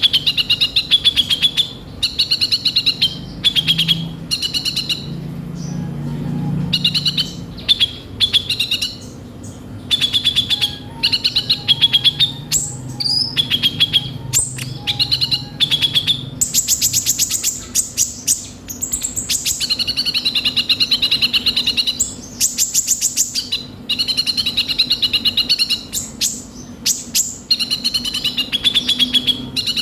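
Kolibri ninja sunbird singing: short, fast, buzzy trilled phrases repeated with brief pauses, with a few very rapid high trills mixed in about halfway through and again a little later.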